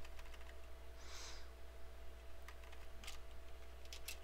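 Faint computer keyboard keystrokes, a few scattered clicks in the second half, over a low steady hum.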